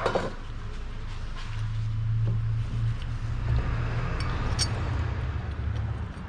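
A steady low hum, like a running engine, that sets in about a second and a half in and fades near the end, with a sharp click at the very start.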